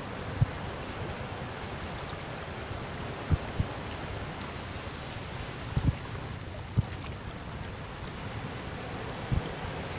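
Small waves washing in among shoreline rocks, a steady rush of water. About six brief low thumps are scattered through it and stand out as the loudest sounds.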